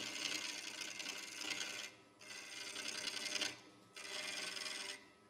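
A 3/8 inch bowl gouge cutting a spinning cube of cedar of Lebanon on a wood lathe, turning down a nub to make a tenon: a steady hissing cut that breaks off briefly twice, about two and three and a half seconds in, as the tool is drawn back between passes.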